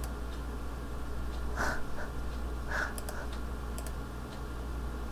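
Computer mouse clicking a few times, sharp and light, about three and four seconds in, over a steady low hum, with two short soft rustling noises just before.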